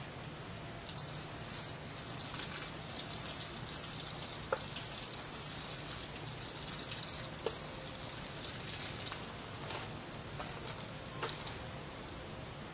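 Water trickling and pattering as it is drained off soaked oak wood chips: a steady hiss that starts about a second in and eases off near the end.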